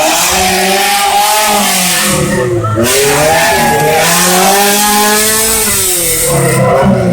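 Off-road vehicle engine revving hard under load, its pitch dipping twice and climbing back up, over a heavy rushing noise.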